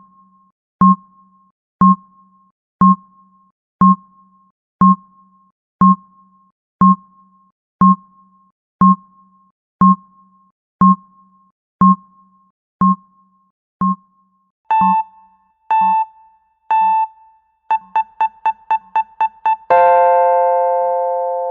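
Countdown timer sound effect: a clock-like tick once a second, then three beeps a second apart and a fast run of about eight beeps as time runs out. The alarm follows about twenty seconds in: a ringing chime of several notes together that fades away slowly.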